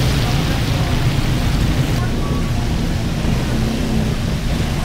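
Busy street noise: a steady rumble of passing traffic under a constant hiss.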